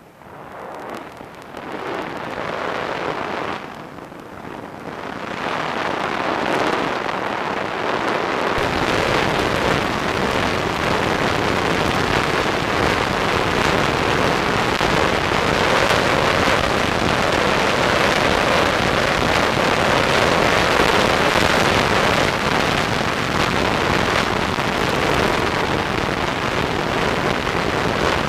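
Wind rushing over the onboard microphone of an EasyStar foam FPV plane gliding in a steep dive with its motor off. The rush grows louder over the first several seconds as airspeed builds, then holds steady.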